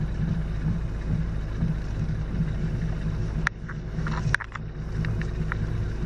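Worn front strut top-mount bearings and springs of a VW Tiguan creaking and clicking as the steering wheel is turned, over the steady low hum of the car inside the cabin. A cluster of sharp clicks and creaks comes past the middle, the loudest about four and a half seconds in. The bearings are worn, with water getting into them.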